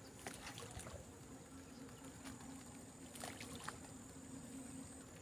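Faint outdoor background with a steady high-pitched whine and a lower hum, broken by a few light clicks.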